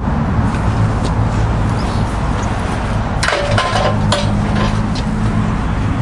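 An engine running steadily at idle, with a few sharp metallic clinks about three and four seconds in.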